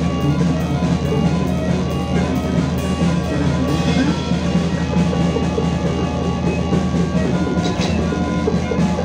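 Music from a trio of modular synthesizer, bass guitar through effects and drum kit: busy drumming over a steady low drone and sustained synth tones.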